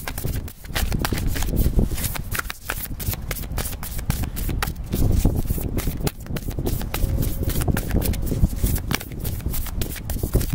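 A tarot deck being shuffled by hand: a continuous run of quick card clicks and riffles, with a low rumble underneath.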